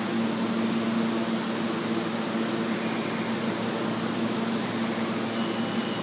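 Steady machinery hum of a subway station platform: a low drone over an even hiss, with a faint high whine coming in near the end.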